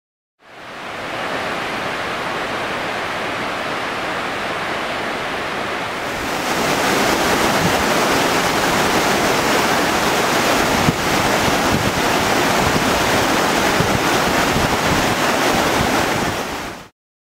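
Steady rushing noise of Wahclella Falls and the rocky creek below it. It fades in, turns louder and brighter about six seconds in, then cuts off abruptly just before the end.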